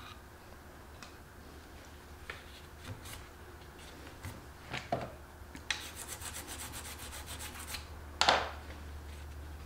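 A rag and a small stick rubbing and scraping against walnut while wiping wet glue squeeze-out from a clamped joint. There are scattered rubs, a quick run of rapid scrubbing strokes past the middle, and one louder scrape near the end, over a low steady hum.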